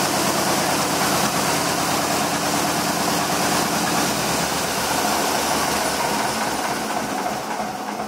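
John Deere 40 crawler bulldozer's two-cylinder gasoline engine idling with an even low pulse. In the second half the firing turns uneven and slows as the engine is switched off.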